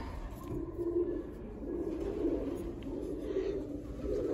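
A bird calling in low, repeated phrases, with short breaks between them.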